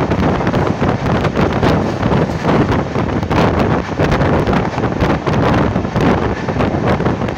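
Loud wind rush buffeting the microphone at the open window of an express train running at high speed, with the train's running rumble underneath.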